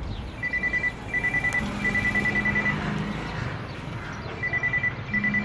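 Mobile phone ringing: a rapid high electronic trill in short repeated bursts, with a pause of about a second and a half midway, and a low hum under some of the rings.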